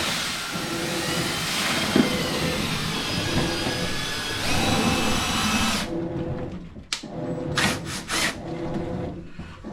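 Electric motor of a power tool running with a whine that wavers in pitch, typical of dryer vent cleaning equipment. It cuts off about six seconds in, then runs again in three or four short bursts.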